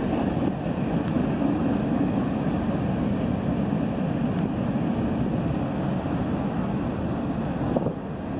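CN freight train rolling past at a distance: a steady, even rumble of the cars' wheels on the rails.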